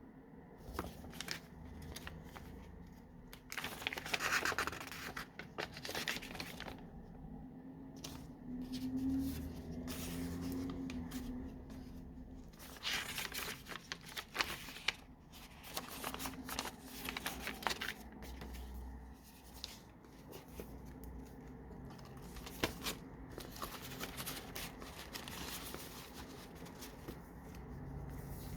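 Paper pages of a handmade junk journal being turned and handled, with irregular rustling swishes, crinkles and small taps.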